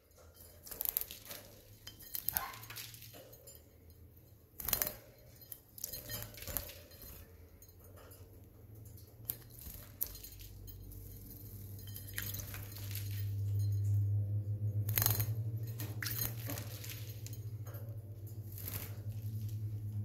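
A lovebird bathing in a shallow ceramic water dish: scattered splashes, quick wing flutters and small clinks of claws and beak against the dish. A low steady hum swells through the second half.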